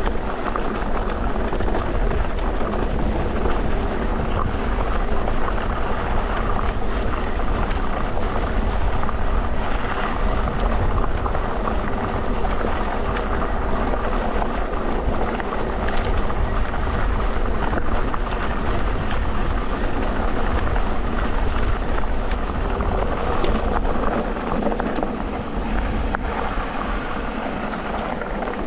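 Electric mountain bike being ridden on a dirt trail: steady rumble of tyres over the ground with drivetrain and frame rattle, and a faint rising motor whine near the end.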